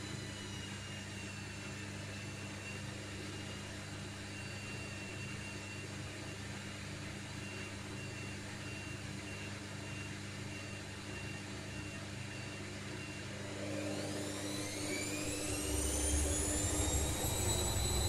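Candy GO 510 front-loading washing machine turning its drum with a steady motor hum and whine, then about fourteen seconds in the motor's whine rises in pitch and grows louder as the drum speeds up into a spin.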